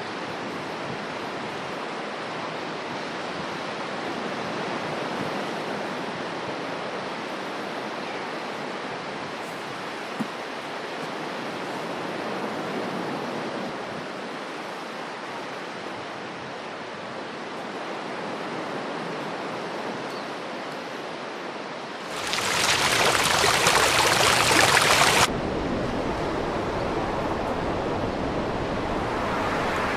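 Steady rush of water. About 22 seconds in, a louder, harsher surge lasts about three seconds, and the rush then carries on a little louder.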